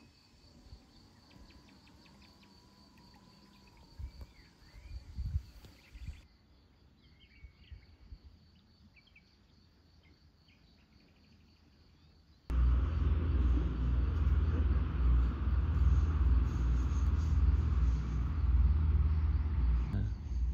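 Quiet pondside ambience, with a steady high insect tone and faint bird chirps. About twelve seconds in, a loud steady low rumble starts abruptly and runs on.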